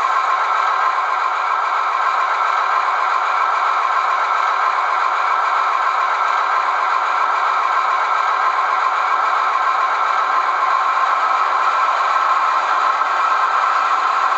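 DCC sound decoder in a model of a DB class 298 diesel locomotive playing its diesel engine running sound through the model's small speaker: a steady rattling drone with no deep bass.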